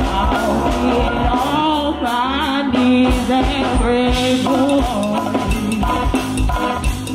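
Live band music: a drum kit keeping a steady beat under pitched instruments, with a voice singing over it in the first few seconds.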